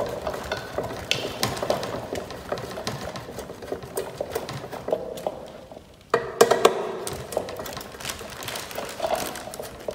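Hand screwdriver turning screws that fix a ceiling fan blade to the motor housing: small, irregular metal clicks and scrapes. They briefly stop just before six seconds in, then resume suddenly.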